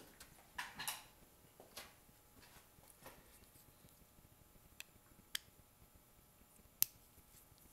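Faint handling of a small metal diaphragm carburetor body, with soft rustles as it is picked up off a shop towel, then three sharp light clicks as a small screwdriver tip meets the screw of the metering needle lever.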